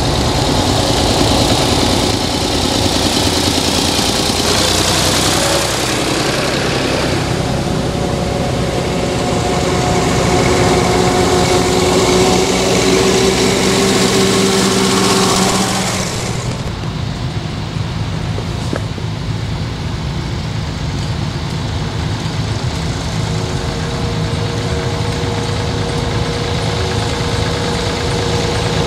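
Vintage tractor engines on a run driving past one after another. A grey Ferguson-type tractor's engine, with a car following, grows louder as it approaches and passes, then drops off sharply a little over halfway through. After that the next tractor's engine is heard running steadily as it approaches.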